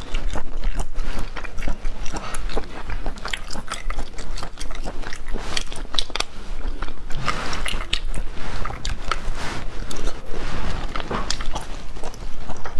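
Close-miked eating of spicy stir-fried sea snails and shellfish: wet chewing and sucking meat from the shells, with many sharp clicks throughout.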